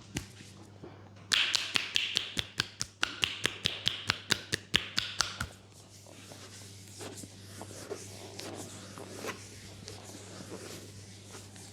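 Hands tapping and slapping quickly on skin during a leg massage, a fast run of sharp slaps at about five a second for some four seconds, then softer rubbing and light taps.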